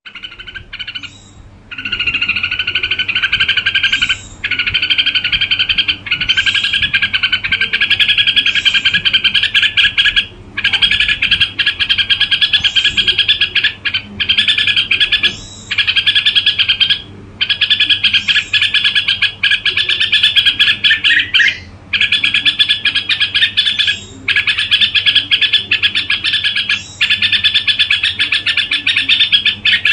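Red-whiskered bulbul singing its soft continuous 'gù' song: long runs of rapid trilling, each a few seconds long, broken by short pauses with a brief higher note.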